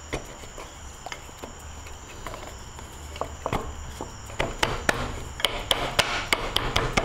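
Wooden wheel being pushed and knocked by hand down onto half-inch dowels in tight holes: scattered wooden knocks and the rub of the dowels in the holes. The knocks come faster and louder about halfway through.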